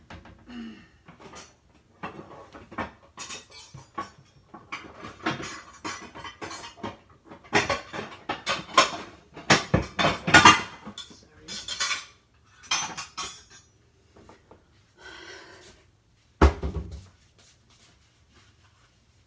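Kitchen clatter: dishes, pans and metal utensils clinking and knocking over and over, then a short scraping rasp and one heavy thud near the end.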